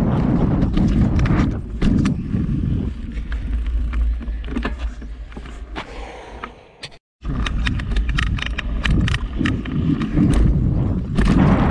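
Mountain bike riding fast over a dirt trail, heard from a handlebar-mounted camera: a steady rumble of tyres on packed dirt with wind on the microphone and frequent clicks and rattles from the bike. The sound fades and cuts out briefly about seven seconds in, then comes back at full level.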